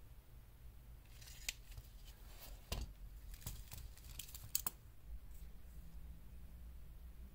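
Handling noise from gloved fingers turning a steel-bracelet watch: a scatter of light metallic clicks and cloth rustles, stopping a little under five seconds in.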